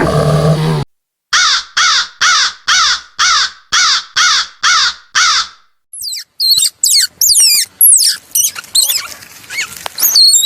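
A low, noisy roar cuts off abruptly within the first second. Then an animal gives about nine harsh calls in an even series, each lasting about half a second. From just past the middle, a fast run of high, sweeping chirps follows.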